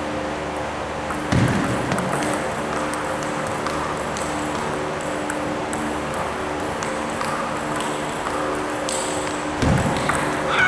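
Table tennis ball clicking sharply and irregularly off paddles and the table during play, with two heavier low thumps, one about a second and a half in and one near the end, over a steady low hum.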